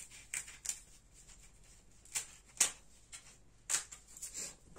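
Handling noise: hands picking up and working a piece of foam sealing strip, giving about six short, sharp clicks and rustles at uneven intervals.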